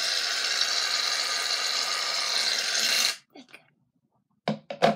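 Aerosol shaving-cream can dispensing foam with a steady hiss that cuts off about three seconds in. A few light knocks follow near the end.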